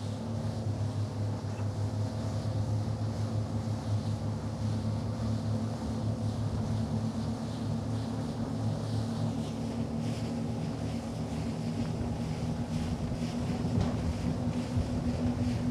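Three Suzuki 300 four-stroke outboard motors running at speed, a steady engine hum under the rush of water and wind.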